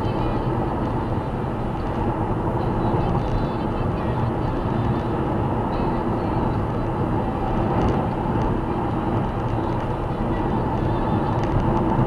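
Steady road noise of a car cruising at about 112 km/h, heard from inside the car: tyre roar and engine drone holding an even level.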